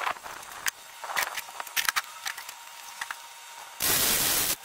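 Chicago Electric 125-amp flux-core wire welder arcing on steel bed-frame angle iron, a steady crackling hiss in one burst of under a second near the end. Before that come scattered light clicks and ticks.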